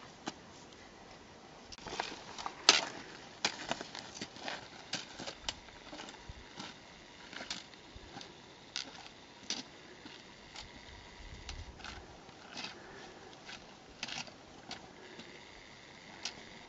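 Irregular crunching steps and scrapes on rough, rocky ground, the loudest a few seconds in.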